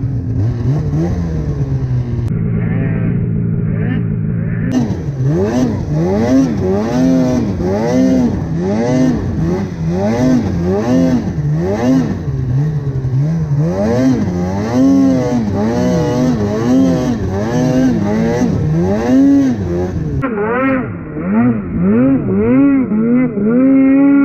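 Snowmobile engine revving up and down over and over, about once a second, as the throttle is worked while riding in deep snow; near the end it holds at high revs.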